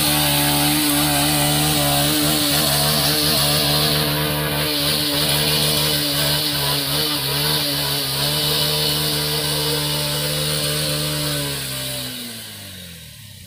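Honda SP 125's single-cylinder four-stroke engine held at high revs under heavy load as the rear wheel churns through deep mud and water. About twelve seconds in, the revs drop away and the sound fades.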